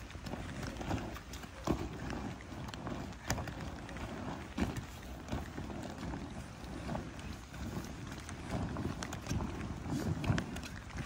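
The heavy vinyl of a deflated bouncy castle rustling and thudding as it is rolled up tightly on grass, with irregular soft knocks, scuffs and footsteps as the material is pressed flat ahead of the roll.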